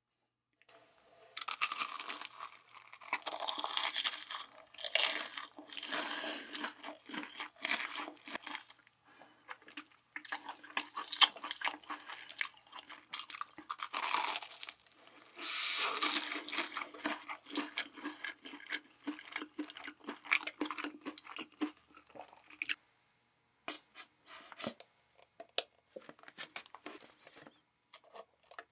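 A person chewing crunchy food close to the microphone, in repeated crackling bites and chews with short pauses between clusters.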